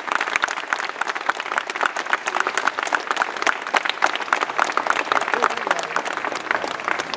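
Audience applauding, a dense run of sharp individual claps close by over the general clapping of the crowd.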